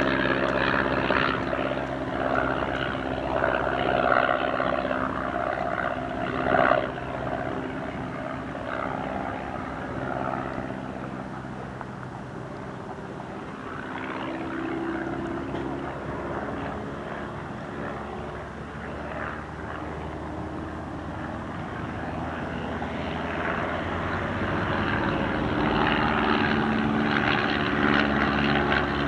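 Single-engine propeller biplane in flight, its piston engine and propeller droning steadily; the drone fades for a while in the middle and grows louder again toward the end as the aircraft comes back round.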